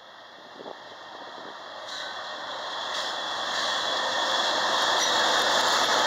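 A BNSF freight train's lead diesel locomotives approach and pass close by. The running noise of the train grows steadily louder and is at its loudest from about four seconds in, as the locomotives go past.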